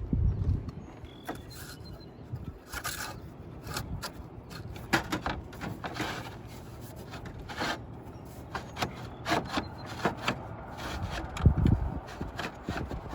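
A roofing slate being slid up into position among the surrounding slates, scraping and clicking against them in short irregular bursts. A heavier low thump comes near the end.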